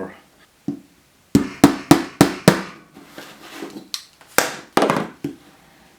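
Hammer driving a nail: a quick run of about five sharp strikes, a short pause, then a few more strikes near the end.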